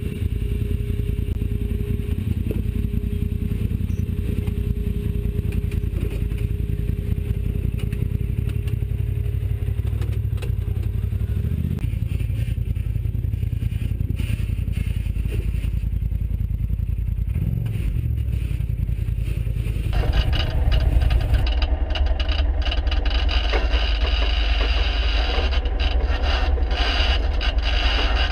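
Off-road side-by-side crawling over rock: engine and drivetrain running with a heavy low rumble, with scraping and clattering of the vehicle on stone. The sound changes abruptly about 20 seconds in and again a moment later.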